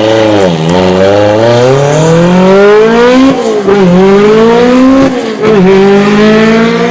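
Peugeot T16 hill-climb race car accelerating hard, its engine note climbing steeply in pitch and dropping briefly at two upshifts, about halfway through and again near the end.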